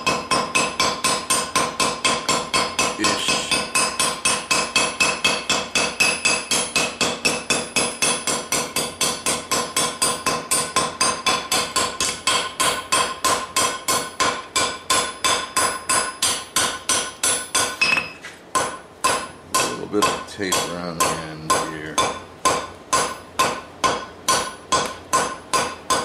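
A hand hammer strikes red-hot steel on an anvil in a steady, rapid rhythm of about three blows a second, with the anvil ringing under them. These are light smoothing blows taking the hammer marks out of a forged finger. About 18 seconds in the blows pause briefly, then carry on with clearer gaps between strikes.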